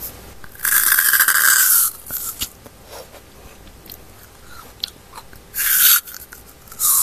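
Crunchy bites into a frozen yogurt ice pop held right up against a clip-on microphone: two short crunches near the end. Earlier, about a second in, comes a longer rasping rustle of the microphone being handled.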